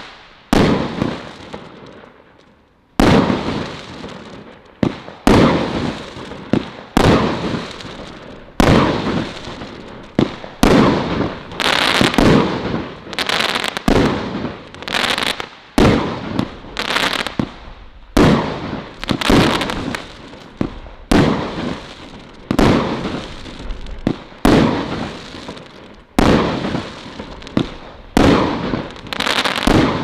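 Celtic Fireworks 'Colour Crackles' multishot cake firing shot after shot, about one a second, after a short lull near the start. Each shot is a sharp bang followed by a fading crackle of bursting stars.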